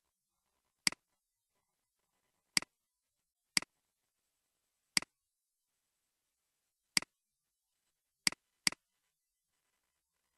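Computer mouse clicking: seven sharp single clicks at uneven intervals of one to two seconds, two of them in quick succession near the end.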